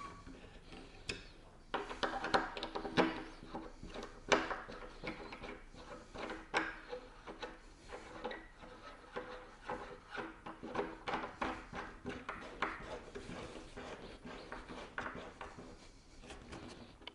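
Bolts with red washers being screwed in by hand through a windsurf board into the foil's Deep Tuttle mast head: a run of small clicks, scrapes and rubbing that starts about two seconds in.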